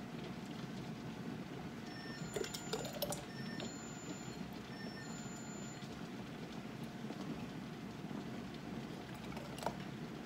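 Wooden spoon scooping thick sauce from the pot and knocking lightly against the pot and a canning funnel on a mason jar: a few soft knocks about two to three seconds in and one click near the end, over a steady low rumble.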